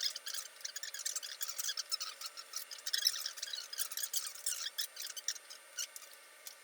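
Dense, irregular small clicks and crackles of hands handling cables and plastic parts inside a PC case.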